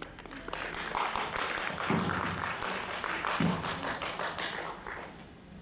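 Audience applauding, dense clapping that dies away near the end, with two brief low thuds in the middle.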